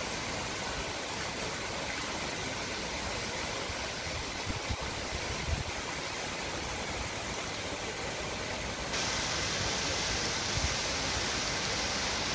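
Steady rush of water falling down a cascade fountain and splashing into its pond, growing louder and brighter about nine seconds in.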